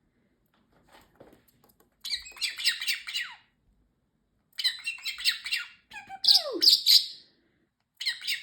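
Parrotlet squawking and chattering in four short bursts of rapid chirps, one of them with a note that slides down in pitch.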